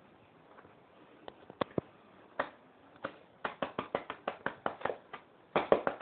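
Cavalier King Charles Spaniel puppy biting and mouthing, making sharp clicks and taps. A few come singly, then a quick run of about six a second, then a louder cluster near the end.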